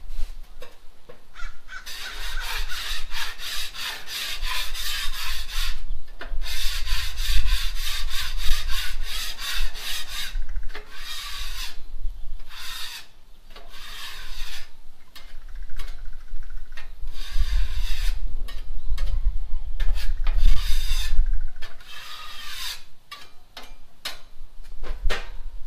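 A scraper rasps back and forth across the steel griddle top in quick, repeated strokes, coming in several bursts with short pauses between.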